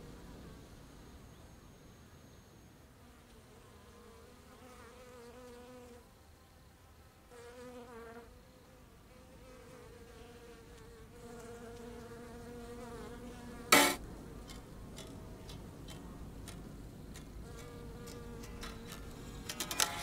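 A low buzzing hum that comes and goes in short stretches, like an insect's buzz. About two-thirds of the way through there is one sharp, loud click, followed by scattered quick ticks that bunch into a run of clicks near the end.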